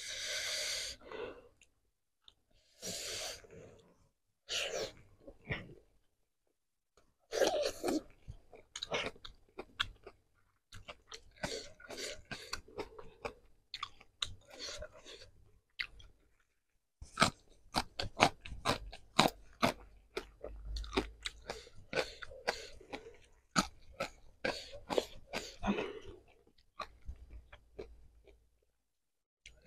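Close-miked chewing and crunching of food: a few short breathy sounds in the first six seconds, then a long run of crisp crunches and chewing clicks.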